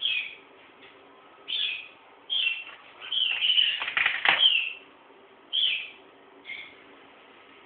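Eclectus parrot calling: a string of short, high calls, with a longer, louder run of sound about three to five seconds in.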